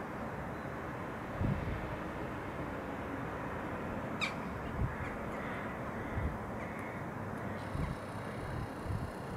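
Crows cawing a few times over a steady background hum of outdoor city noise, with occasional low thumps.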